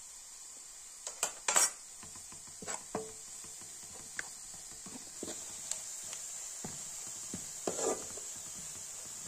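Dishes and utensils being handled, clinking and knocking a few times with the loudest clatter about a second and a half in and another near the end, over a steady high hiss.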